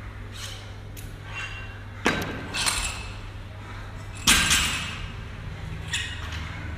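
Steel barbell and bumper plates clanking and thudding as plates are worked on and off the bar: two sharp clanks about two seconds apart, the second the loudest and ringing briefly, with lighter metal clinks around them.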